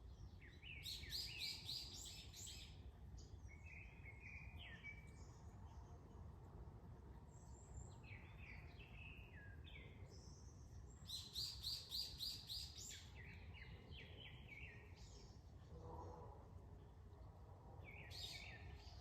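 Small songbirds singing and chirping outdoors, faint. Two longer phrases of rapid repeated high notes come about a second in and about eleven seconds in, with shorter chirps between them over a steady low background rumble.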